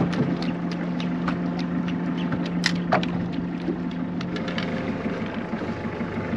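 A boat's engine idling with a steady low hum, with scattered light clicks and taps on the hull over it.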